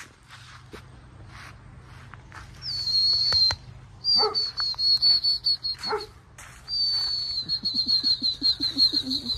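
Harlequin Great Danes playing, one giving two short falling yelps about four and six seconds in. Under and between them runs a high, steady trilling call that starts nearly three seconds in and breaks into a fast stutter; it is the loudest sound.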